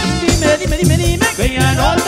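Mexican regional band music with a steady, rhythmic dance beat and melodic lines over the drums.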